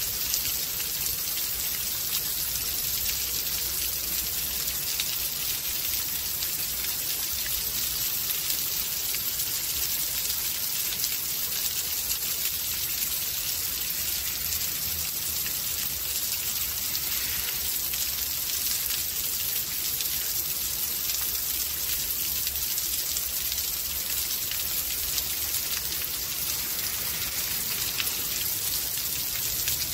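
Rainstorm: steady rain falling, an even hiss with a dense patter of drops on surfaces and a faint low rumble underneath.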